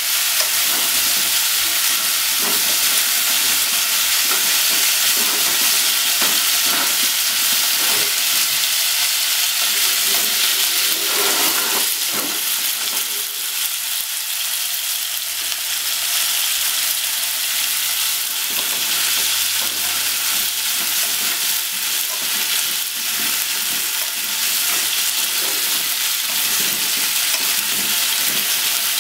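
Sliced pork and whole peeled potatoes sizzling as they fry in a pot, with frequent clacks and scrapes as wooden chopsticks and a wooden spatula stir them. The clacks thin out for a few seconds in the middle.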